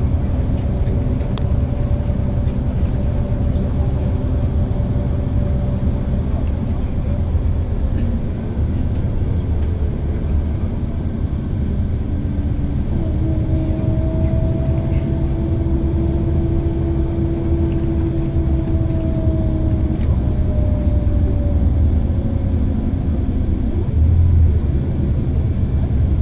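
Interior drive sound of a Scania L94IB city bus: the DC09 five-cylinder diesel's low rumble with the ZF Ecomat 5HP600 automatic gearbox whining over it. The whine sags and fades in the first part, then a fresh whine starts about halfway through, rises slightly with speed and fades out again.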